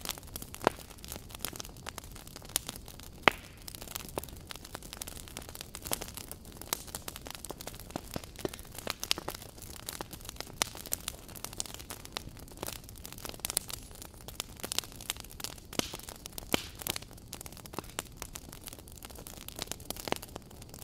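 Crackling fire: a steady scatter of irregular pops and snaps over a low hiss, with a few sharper pops, the loudest about three seconds in.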